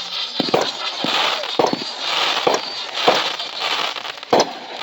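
Fireworks going off: a string of sharp bangs, about one or two a second, with crackling in between; the loudest bang comes near the end.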